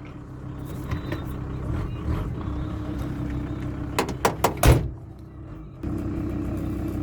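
A vehicle engine running steadily, with a quick series of knocks and clunks about four seconds in. After a short dip, a steady engine hum starts suddenly near the end.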